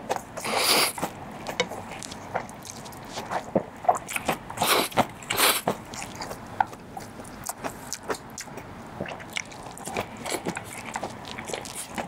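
A man eating Chapagetti black-bean-sauce instant noodles: slurping and wet chewing close to the mic. There are louder slurps about half a second in and twice around five seconds in, with short chewing clicks between.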